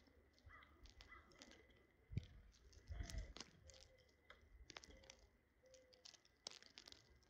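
Faint, irregular light clicks and taps of birds pecking at food, with a low thump about two seconds in and another about three seconds in.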